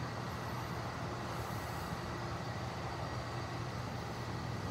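Steady low mechanical hum with no distinct click or clunk.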